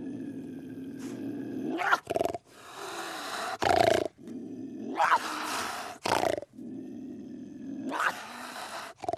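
Recorded animal growls and roars spliced together: a low, steady growl, then a string of louder, rougher roars about a second long, with abrupt cuts between the clips.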